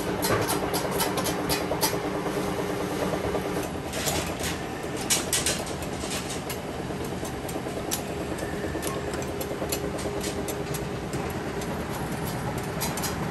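Udon noodle-making machine running: a steady mechanical hum under rapid, irregular clicking and clatter.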